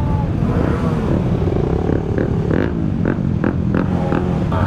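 Several motorcycle engines running together in a close group, revving up and down in pitch, with a quick run of short, sharp blips in the middle.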